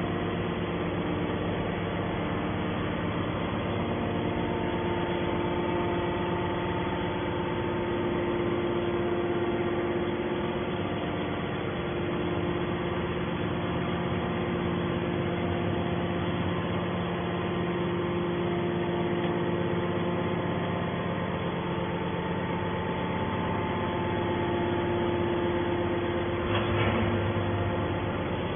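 Hydraulic can baler's motor and pump running steadily, a constant machine hum with several held tones. A brief knock sounds near the end.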